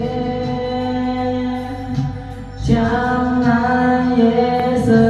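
Karaoke duet: a woman and a man singing long held notes into microphones over backing music. The singing drops away briefly a little past two seconds in, then comes back louder.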